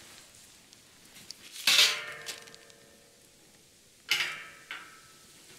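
Two metallic clanks of metal cooking gear being handled, about two and a half seconds apart. Each rings on briefly, the first one longer.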